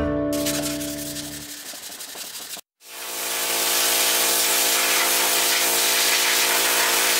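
Hand sanding rubs faintly and fades out. After a short cut, a compressed-air blow gun fed from a Mastercraft air compressor hisses steadily, blowing off the sanded plastic model body.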